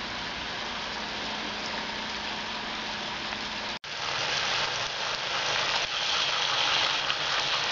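Round slices of processed meat sizzling in oil in a frying pan on a gas stove: a steady hiss. The sound briefly cuts out just under four seconds in and comes back louder and brighter.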